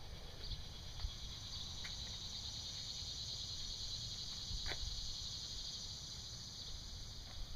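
A steady, high-pitched chorus of insects, such as crickets, with a low rumble beneath and a few faint knocks.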